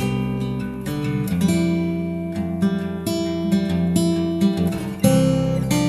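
Background music: acoustic guitar strummed and plucked, its chords changing every second or so.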